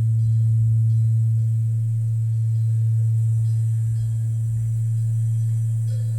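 Large Korean bronze temple bell (beomjong) humming long after a strike: one deep steady tone that slowly swells and eases.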